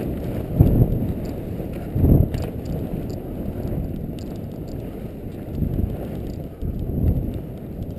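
Skis sliding and turning on snow, heard with wind rushing over the skier's camera microphone: a continuous low rush that swells several times.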